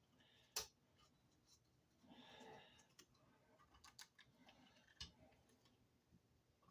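Faint handling noises from close work on small parts: a few sharp clicks and a brief scratchy rustle about two seconds in.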